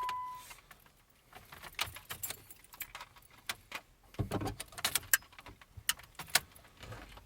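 Car keys jangling and clicking at the ignition of a car that won't start, in scattered sharp rattles with a denser cluster about four seconds in. A steady electronic warning tone cuts off just after the start.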